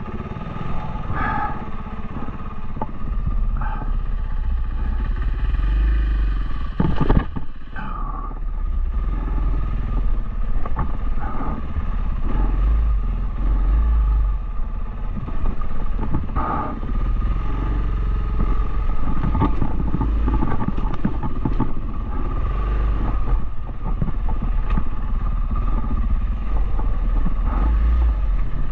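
Dual-sport motorcycle engine running steadily while riding, with frequent small knocks and a sharp loud jolt about seven seconds in.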